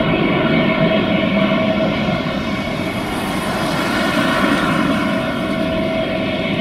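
The four Rolls-Royce Trent 900 turbofans of an Airbus A380 at takeoff thrust as the airliner rotates and lifts off. The jet noise is loud and steady, with a constant tone running through it.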